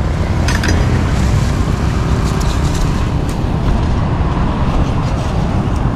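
Wind buffeting the microphone, a loud steady low rumble, with a few faint light clicks and knocks from cleaver and tongs at a wooden chopping board.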